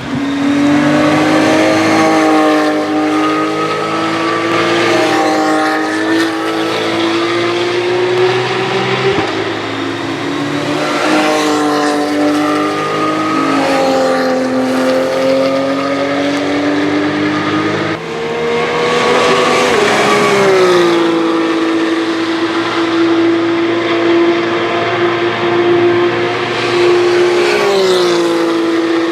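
Racing cars' engines at high revs going by on the circuit, a continuous loud engine note whose pitch holds, then dips and recovers several times.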